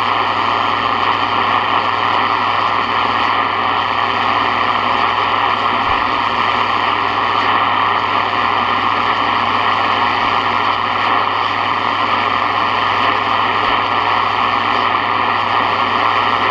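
Sony ICF-7601 shortwave radio's speaker giving out steady static hiss while tuned through an empty shortwave band, with no station coming in and a low steady hum underneath.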